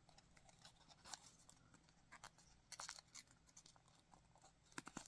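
Near silence with faint, scattered rustles and crinkles of origami paper being pinched and creased, a few small clusters about a second in, near three seconds and near the end.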